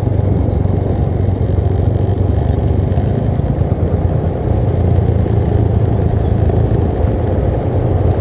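Wind buffeting the microphone over the steady low hum of an automatic scooter being ridden along.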